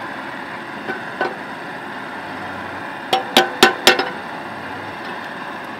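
Cut-out square of steel plate clinking against the bumper and a hooked welding rod as it is pried loose from the newly cut receiver hole. There are two light clinks, then about three seconds in four sharp, ringing metal clanks about a quarter second apart.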